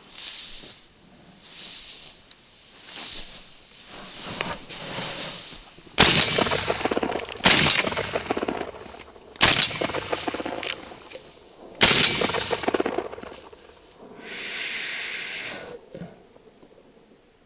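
Footsteps swishing through tall dry grass, then a shotgun fired four times in quick succession, a loud sharp report every one and a half to two and a half seconds, each trailing off.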